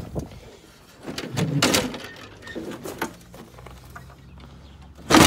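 Hood of a 1976 Johnson SR 440 snowmobile being unlatched and lifted open: scattered knocks and rattles, with a louder thump at the very end.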